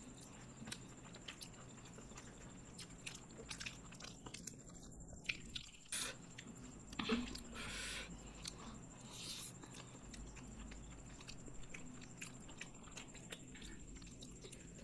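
Close mouth sounds of people eating black bean noodles and fried chicken: chewing and biting, with soft wet clicks and smacks and a few louder ones in the middle.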